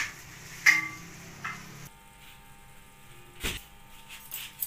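Utensil knocking against a nonstick wok of stir-fried chicken: two sharp clinks in the first second, the second ringing briefly, then a fainter knock. A dull thump comes about three and a half seconds in.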